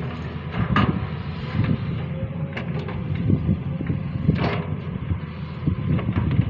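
Sany SY215C hydraulic excavator at work: its diesel engine runs steadily under load, with irregular clatter and a few sharper knocks, the loudest about four and a half seconds in.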